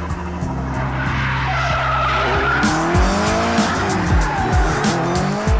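A drifting car: the engine revs up and down repeatedly and the tyres squeal, over background music with a beat.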